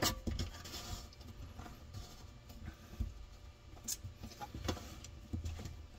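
A few faint clicks and scrapes of a plastic mounting nut being turned by hand onto a kitchen faucet's threaded shank.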